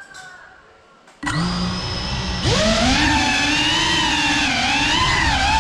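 GEPRC Cinelog 35 cinewhoop's brushless motors and propellers start suddenly a little over a second in, spinning at idle with a low steady hum. About a second later they throttle up into a loud, high whine whose pitch wavers with the throttle as the drone lifts off the floor.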